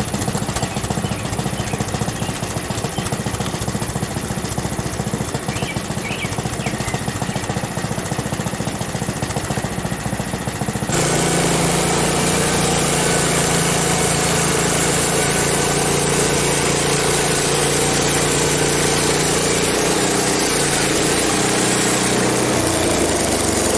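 Frontier OS23 portable bandsaw sawmill running, its small gas engine steady, on a blade the owner suspects is getting dull. About halfway through the sound abruptly gets louder, with a steadier low hum.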